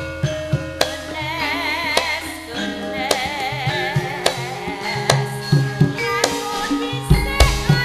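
Javanese gamelan (karawitan) playing, with metallophone notes struck in a steady pulse and a female singer's wavering line over them. Deep drum strokes come in heaviest near the end.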